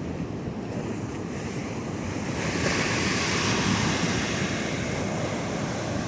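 Pacific Ocean surf: a wave breaks and washes up the beach, swelling about two seconds in and easing off toward the end, with wind buffeting the microphone.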